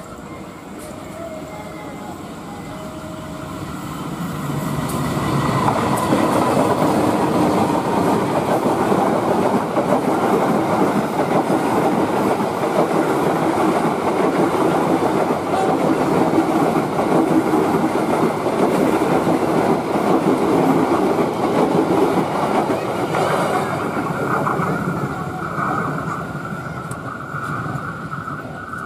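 KAI diesel locomotive and a long train of economy passenger coaches passing straight through at speed. The sound builds as it approaches, and the wheels clatter over the rail joints as the coaches go by, fading near the end as the last coach moves away.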